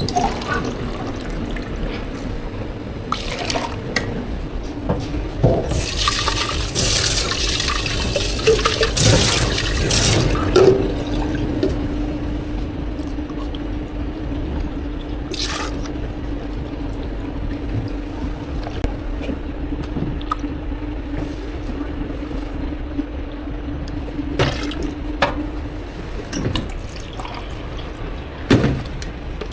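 Water running from a tap into a container: a hiss of pouring for a few seconds, then a steady low tone that holds until a few seconds before the end, with scattered light knocks.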